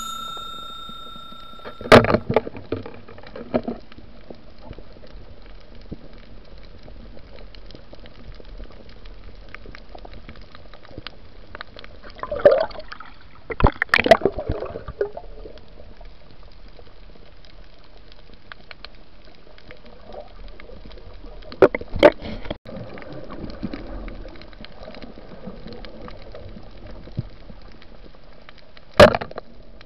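Underwater recording: a steady, muffled rush of water around the camera housing, broken by a few sudden loud knocks and scuffs, about 2 s in, a cluster around 13 to 14 s, another about 22 s in and one near the end. A bell-like chime rings briefly at the very start.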